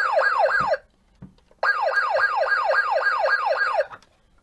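Battery-powered Dickie Toys fire engine's electronic siren sound effect: a fast falling wail repeating about four times a second. It breaks off just under a second in, starts again about a second and a half in, and stops near the end.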